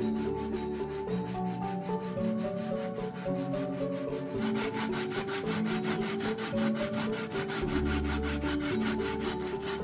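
Coconut flesh scraped on a flat metal hand grater, a repeated rasping, under background music with held notes.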